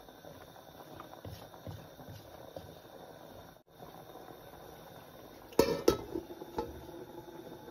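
Curry simmering quietly in a large metal pot with a few soft knocks of a wooden spoon, then a metal lid clanks onto the pot twice in quick succession, ringing, a little past halfway, with lighter knocks after.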